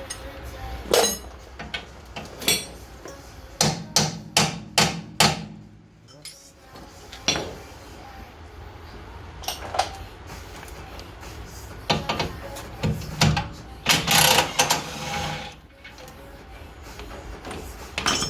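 Metal knocks and clanks from hand tools on brake parts, mostly single sharp strikes, with a quick run of about five blows around four to five seconds in and another cluster near the end.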